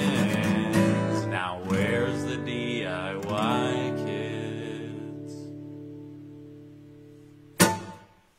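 Acoustic guitar strumming the closing chords of a song, then a last chord left ringing and slowly fading away. A single sharp knock near the end cuts it off.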